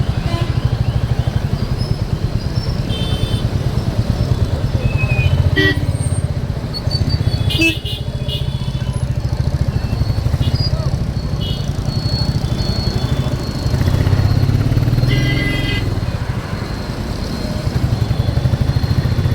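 Royal Enfield motorcycle's engine running steadily with a pulsing low thump as it is ridden. A few brief high tones sound over it now and then.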